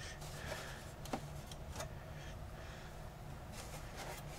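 Faint handling sounds: a few light clicks and rubbing as hands move and reposition the plastic monitor housing and metal chassis of an AT&T UNIX PC 3B1, over a low steady hum.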